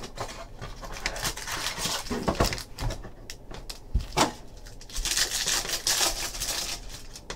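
Handling of a cardboard trading-card box and its packs, with rustling and light knocks, then a trading-card pack's wrapper being torn open and crinkling from about five seconds in.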